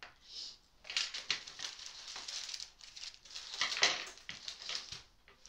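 Sheet of baking (greaseproof) paper rustling and crinkling as it is handled and shifted, in uneven rustles with small crackles, loudest about four seconds in.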